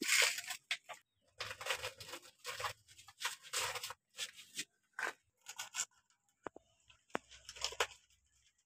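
Plastic toy excavator bucket scraping and scooping sandy dirt and tipping it into a plastic toy dump truck's bed: a run of short, irregular scrapes and rustles with a few light clicks, thinning out after about six seconds.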